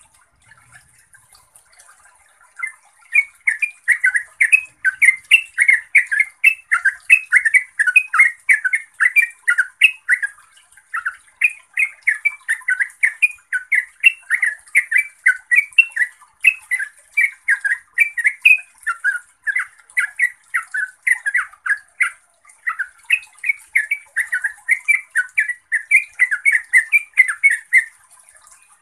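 Yellow-vented bulbul singing: starting about three seconds in, a fast, almost unbroken run of short chattering notes, several a second, with only brief pauses. This is the continuous rapid song that bird keepers call ropel.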